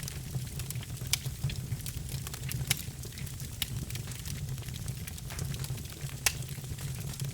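Wood fire burning in a fireplace: a low steady rumble of the flames with irregular sharp crackles and pops from the logs, the loudest pop about six seconds in.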